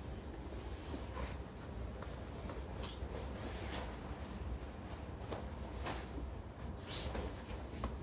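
Whirlpool WFO3P33DLXUK dishwasher running mid-cycle behind its closed door: a low steady hum with faint scattered ticks.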